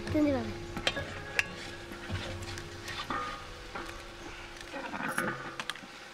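Eggs being cracked by hand on the rim of a steel bowl: a few sharp taps of shell on metal, and the wet drop of the eggs into the raw egg already in the bowl.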